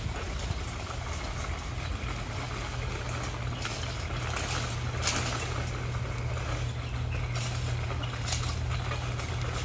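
A wheeled metal-mesh nursery cart being pushed over concrete and gravel: its wheels roll with a steady rumble and the frame rattles, with a sharp clank about five seconds in and a few lighter knocks near the end.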